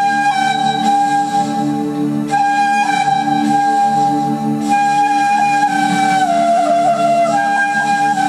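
Bamboo transverse flute (bansuri) playing a slow melody in long held notes, stepping down to a lower note about six seconds in and back up near the end, over a steady low backing accompaniment.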